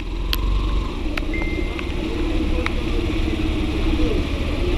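Motorcycle engine running as the bike is ridden slowly, a steady low drone. A few sharp clicks and one short high beep are heard over it.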